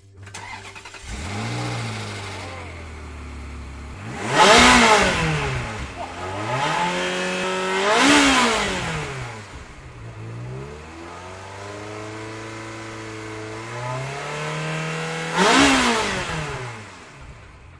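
Ferrari 360 Spider's 3.6-litre V8 idling and being revved repeatedly, the pitch climbing and dropping back each time. The three hardest and loudest revs come about four, eight and fifteen seconds in.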